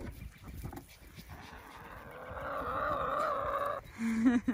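Backyard hens calling while they peck at scattered feed: one long, slightly wavering call lasting a couple of seconds, then a short call near the end.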